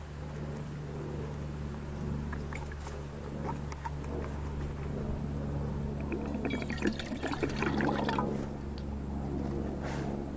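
Water poured from a plastic canteen into a metal canteen cup, splashing loudest for about two seconds past the middle, over a steady low hum.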